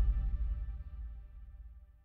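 Background music fading out to silence at the end of a track, its held tones dying away.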